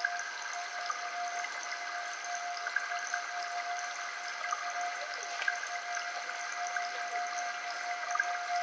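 A steady drone of several held tones, the strongest a mid-pitched hum, over an even hiss like running water, with a few faint ticks.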